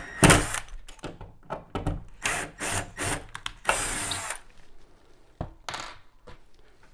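Wall anchor being screwed into drywall at a spot of hardened joint compound (mud), scraping and grinding in several short, irregular bursts, the loudest right at the start.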